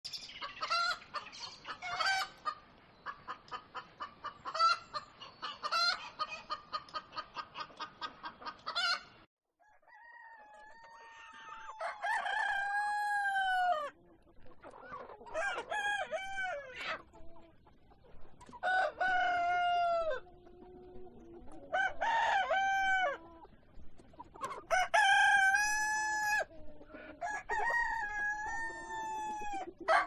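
Chickens clucking rapidly in quick short calls for about nine seconds. After a brief break, a rooster crows repeatedly, about six long crows roughly three seconds apart.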